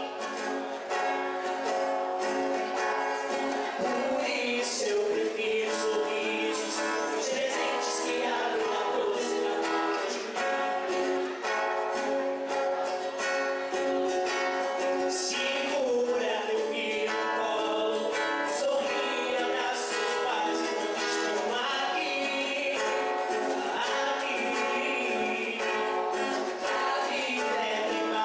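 A live song: an acoustic guitar plays steadily under singing through microphones.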